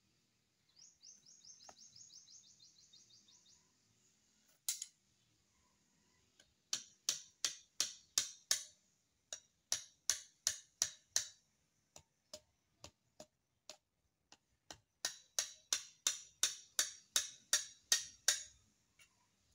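A knife working down a bamboo stick held upright, in quick sharp scraping strokes about three a second, coming in three runs with a sparser patch in between. Before the strokes come a short, rapid high trill and a single sharp click.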